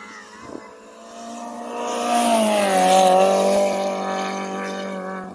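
Rally car engine held at high revs as the car approaches and passes on a gravel stage. It grows loud about two seconds in, with a hiss over it at its loudest, dips in pitch, then fades away.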